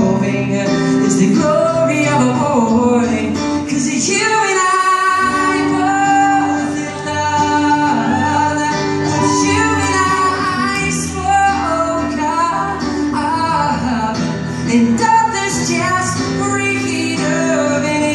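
Live song performance: singing over an acoustic guitar, heard from the audience in a concert hall.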